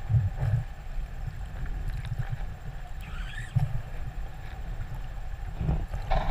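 Underwater sound: a steady low rumble and faint hum of water against the camera housing, with soft thuds, and one short rising killer whale call about three seconds in.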